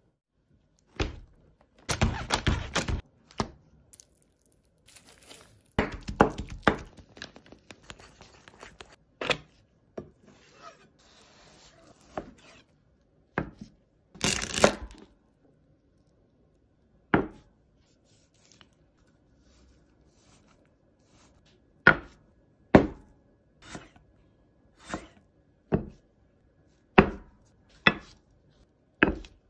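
Close-miked food-preparation sounds, clean of talk. Crackly tearing and scraping comes in clusters during the first seven seconds and again briefly about halfway, then single sharp knocks follow on a hard surface, roughly one a second, near the end.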